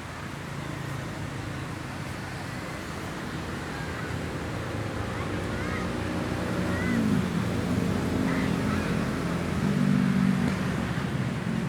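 Beach ambience: surf washing on the shore as a steady noise, with a low droning tone that grows louder through the second half and faint distant calls.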